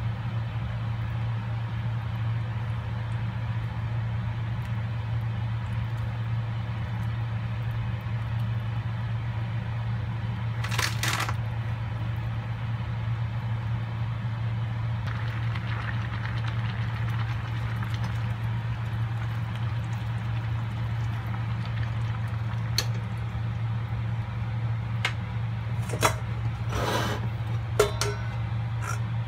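Spaghetti cooking in water in a stainless steel pan, heard as a steady hiss over a steady low hum. The plastic pasta server clacks against the pan about eleven seconds in. Near the end there are a few sharp clanks as the metal pan is lifted off the cooktop.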